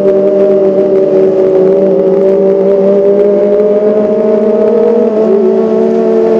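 Kawasaki ZX25R 250 cc inline-four engine running at high revs, a loud steady high engine note whose pitch creeps slowly up.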